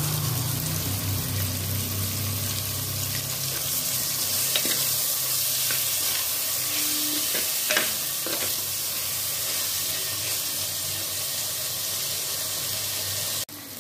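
Shallots, green chillies and tomatoes sizzling steadily in hot oil in an earthenware pot as they are sautéed, with a few clinks and scrapes of a steel spoon against the pot as it stirs.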